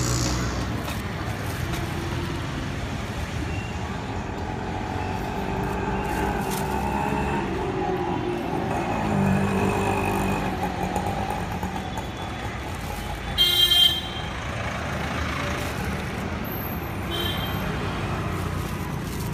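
Steady street traffic noise, with a short, loud vehicle horn toot about thirteen and a half seconds in.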